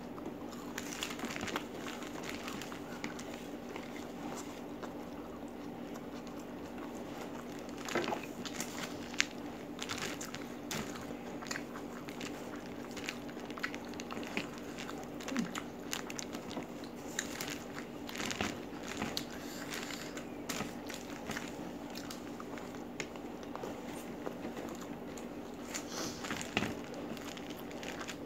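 Close-up eating sounds: biting into a raw red chili and chewing, with scattered crunches and the crinkle of paper as food is picked by hand from a paper-lined basket. A steady low hum runs underneath.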